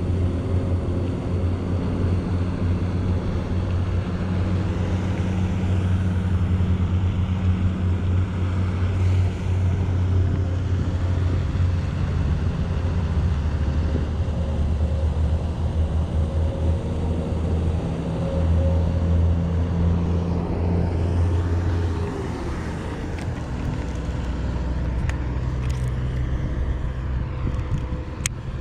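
Wind buffeting the microphone: a steady low rumble that eases a little near the end, with a few light clicks.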